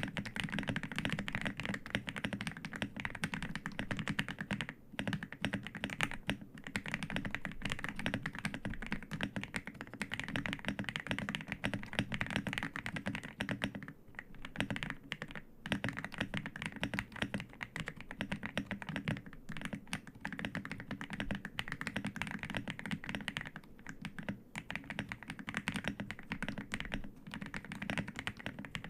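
DryMartini Omo100 custom mechanical keyboard with hand-lubed BSUN Cherry Blossom linear switches, typed on quickly and continuously: a dense stream of keystroke clacks broken by a few brief pauses.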